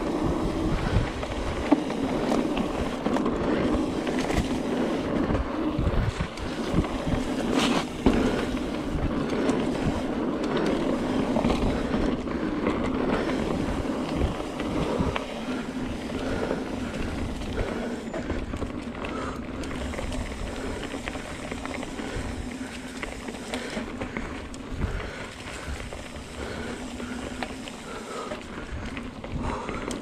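Mountain bike rolling along a dirt trail: steady tyre and wind noise on the microphone, with low knocks over bumps and a sharp click about eight seconds in. It gets a little quieter in the second half.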